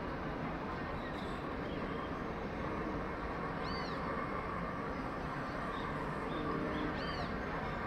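Short high-pitched animal calls, each rising and falling, twice about three seconds apart, with fainter small chirps between, over a steady background hum.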